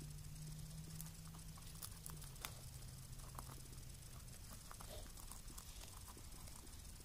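Faint scattered clicks and rustling of a small pet moving about in hay, over a steady low hum that stops about four seconds in.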